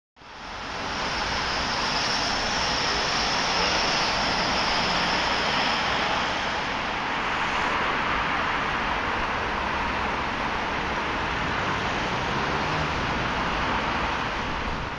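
Steady outdoor noise of street traffic and the demolition site's machinery, fading in over the first second. A faint high whine sits over it for the first several seconds.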